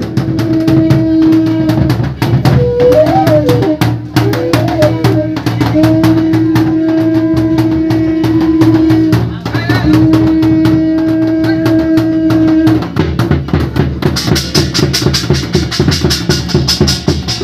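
Santal folk drumming on double-headed barrel drums: fast, steady strokes throughout, with a melody of long held notes laid over it in three stretches. Near the end the held notes stop and the strokes turn sharper and brighter.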